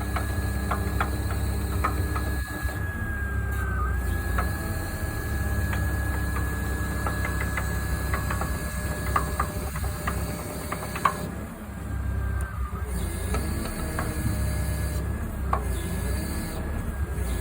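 Iwafuji GPi-40TC forestry machine running as it swings. A steady low engine drone sits under a constant high whine, with scattered clicks and knocks throughout. This is the abnormal swing noise of a machine that is short of power.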